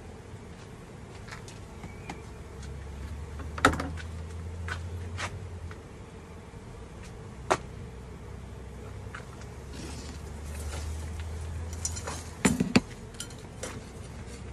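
Honeybees buzzing steadily around a beehive, with a few sharp knocks and clicks from the hive gear being handled. The loudest knocks come as a quick pair near the end.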